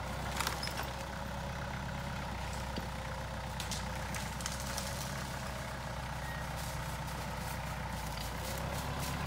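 Kubota compact tractor's diesel engine running steadily as the tractor works in the woods, with a few light clicks and cracks over it.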